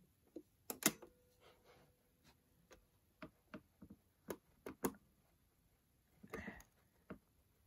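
Faint, irregular small plastic clicks and taps from the control knobs of a compact cassette radio being gripped and tugged while trying to pull them off, with a short rustle about six seconds in.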